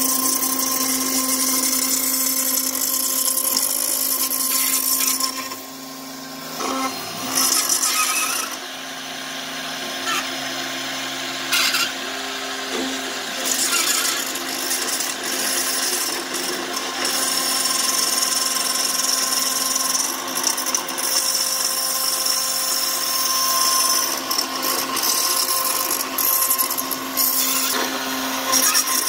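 CNC router spindle running steadily with a 1/4-inch solid carbide upcut O-flute end mill, milling a 3form Chroma resin panel: a constant spindle hum and whine under a hissing cutting noise. The cutting noise eases off briefly about six seconds in and again around nine seconds.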